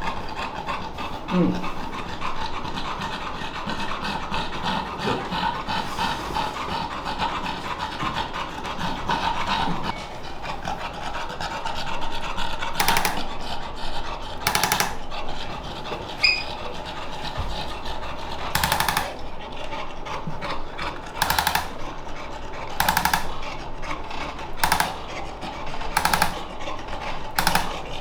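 Victorian Bulldog breathing noisily and steadily while being handled. In the second half, short harsh snort-like breaths come every second or two.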